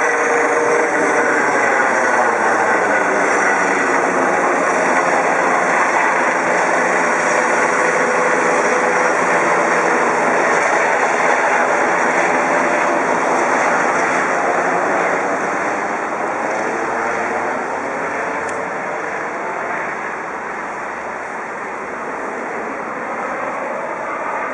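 Eurocopter EC135 twin-turbine helicopter flying overhead and away after takeoff, its rotor and turbine noise loud and steady, then fading somewhat from about 15 seconds in as it moves off.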